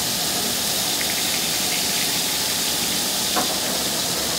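Stingray pieces sizzling steadily on a hot flat-top griddle as they are blackened, with one light knock about three and a half seconds in.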